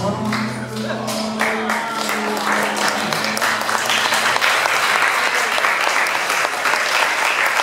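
A song's last held notes fade out as a crowd of wedding guests breaks into applause, which builds over a couple of seconds and then holds steady.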